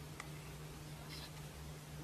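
Quiet room tone: faint steady hiss and a low hum, with two faint ticks, one just after the start and one about a second in.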